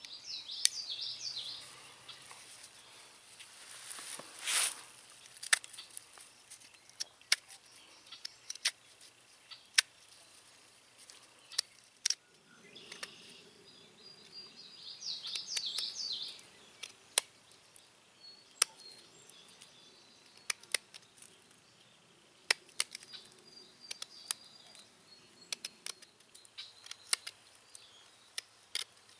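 Sharp, irregular clicks and ticks of a Flexcut carving blade cutting into a round of tree limb and prying out chips as the middle is hollowed out.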